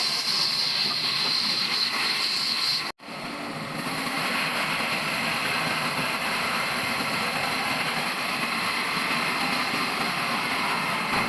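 Sawmill machinery running steadily with a hissing noise. About three seconds in the sound cuts out abruptly for a moment, then comes back with a slightly different tone.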